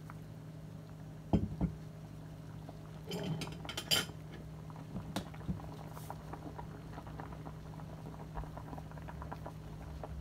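Tofu soup boiling in a stainless steel stockpot: steady bubbling with many small pops over a low steady hum. A knock about a second in, and a short run of metal clinks around three to four seconds in.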